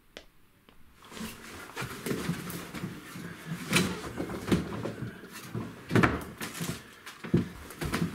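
Wooden chest of drawers being opened and rummaged through: starting about a second in, a busy run of irregular knocks, wooden clunks and rattling of objects being moved around.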